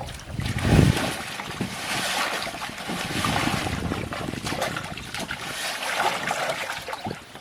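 Water splashing and sloshing around a small boat, with a low thump a little under a second in and scattered knocks throughout.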